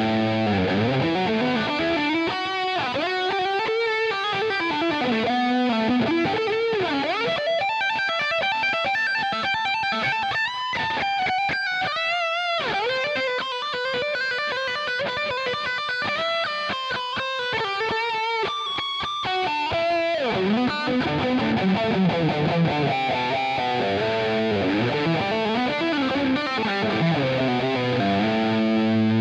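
Distorted electric guitar played through a Scuffham S-Gear amp-simulator preset: a lead line of single notes with many string bends and slides.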